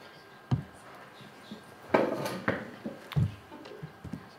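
Handling noise: a dull thump about half a second in, a louder clatter about two seconds in, and another thump a little after three seconds, with a few light clicks over quiet room tone.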